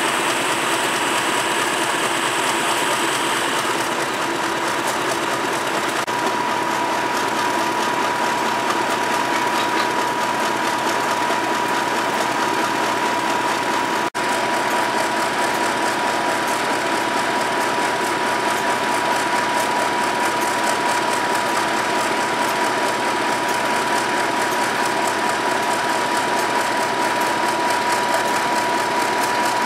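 Class 50 diesel locomotive's English Electric 16CSVT V16 engine idling, a steady clattering mechanical running with a steady high whine that sets in about six seconds in. The sound breaks off for an instant about halfway through.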